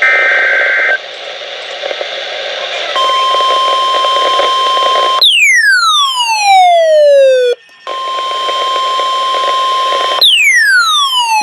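Weather alert radio sounding a NOAA Weather Radio alert: the last second of a buzzy SAME data burst, a stretch of radio static, then twice the steady 1050 Hz warning alarm tone followed by a falling electronic siren sweep. This is the activation that heads a tornado warning.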